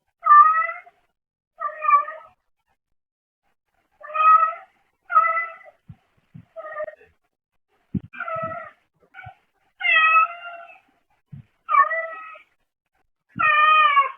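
A brown tabby cat meowing repeatedly, about ten short meows in quick succession, heard through a pet camera's microphone.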